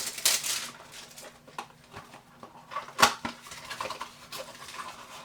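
Pieces of plastic heat shrink tubing being handled and sorted: scattered light clicks and rattles, with one sharper click about three seconds in.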